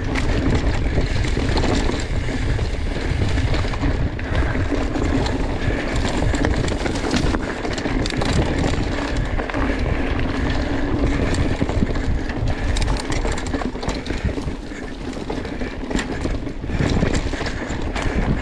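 Mountain bike rolling fast down a dirt forest trail: a steady low rumble of tyres and rushing air on the bike-mounted microphone, with frequent clicks and rattles from the bike over bumps and roots.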